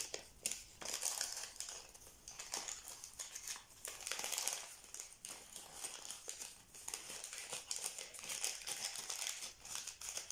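Paper packaging rustling and crinkling in irregular handfuls, with small clicks, as scrapbooking pieces are handled and unwrapped by hand.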